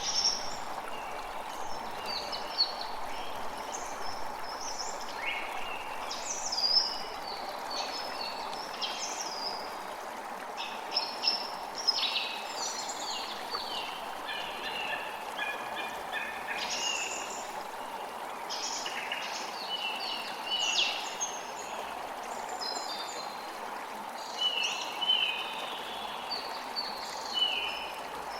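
Several birds chirping and trilling in quick, frequent phrases over a steady rush of running water.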